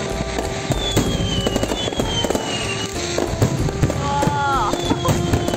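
Fireworks going off overhead: a rapid run of bangs and crackles, with a few whistles that fall in pitch.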